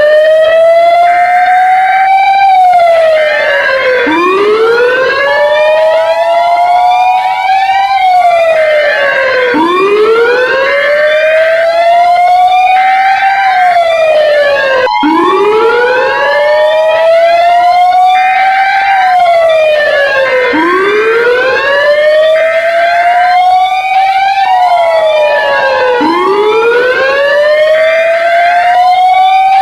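Emergency alert alarm siren: a loud wail that climbs slowly for about four seconds and then drops quickly, repeating about every five seconds. Overlapping higher siren sweeps and short steady two-note beeps sound over it. A sharp click comes about halfway through.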